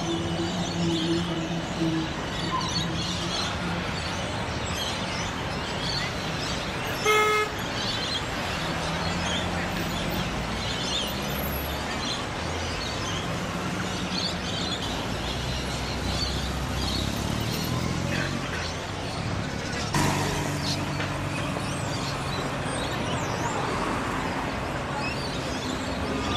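City street traffic with trams and cars passing, a steady hum of motors and road noise. A short, loud horn toot comes about seven seconds in, and a sharp crack comes around twenty seconds in.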